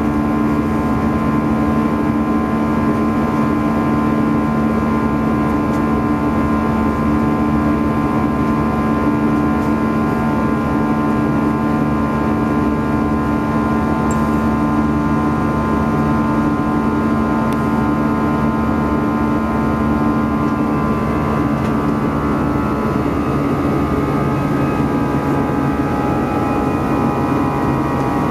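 Steady drone of an Airbus A321-211's twin CFM56-5B turbofan engines and airflow, heard inside the cabin beside the wing. It holds a few steady hums, and their pitch shifts slightly about twenty seconds in, a small change in engine thrust.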